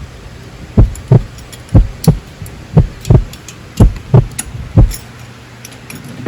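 A heartbeat, five slow double beats of about one a second, most likely a sound effect laid in to build tension. Faint ticks sound over it.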